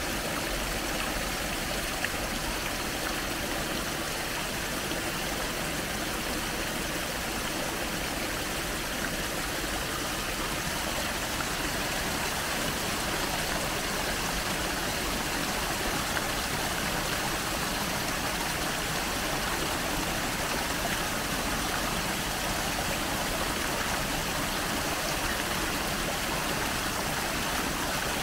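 Steady, even rush of running water, without break.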